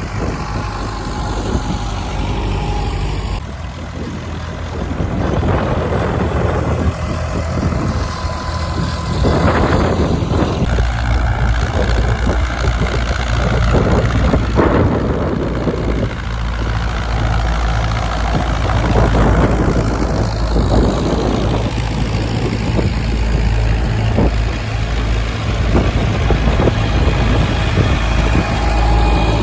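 Vintage tractor engine running steadily at low speed while pulling a plough.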